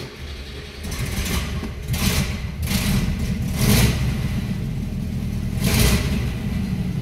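ZAZ-968M Zaporozhets's air-cooled V4 engine running, heard from inside the cabin. It rises in short revs about two, three, four and six seconds in.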